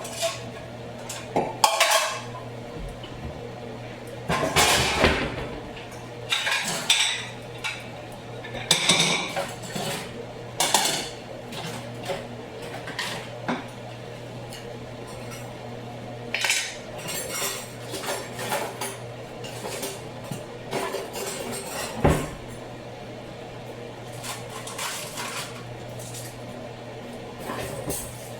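Pots, pans and metal utensils clinking and clattering at irregular intervals during kitchen work, over a steady low hum.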